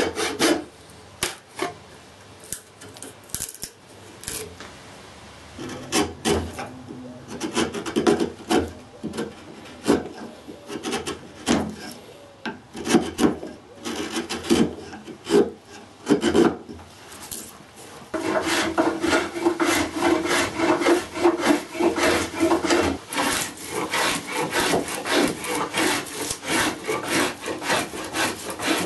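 Hand tools working a cherry branch: a series of separate scraping and paring strokes as a saw and chisel take off stubs and bark. About 18 seconds in, this gives way to a louder, steady run of quick shaving strokes as a spokeshave peels long shavings off the stick.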